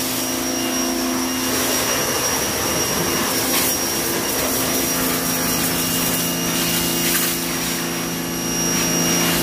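Electric pressure washer running steadily, its motor humming with a thin high whine over a strong hiss of the jet spraying onto the car.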